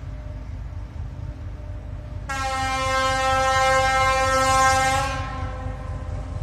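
Diesel locomotive T458-1509's horn sounding one long blast of about three seconds, starting a couple of seconds in, over a steady low rumble.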